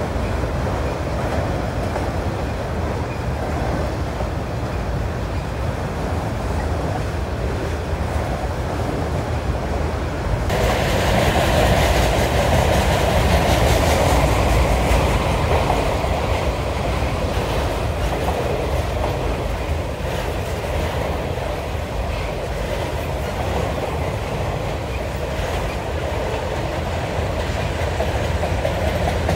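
Freight train of autorack cars rolling by: a steady low rumble with wheels clacking over the rail joints. About ten seconds in the sound turns abruptly louder and brighter as the train is heard close up.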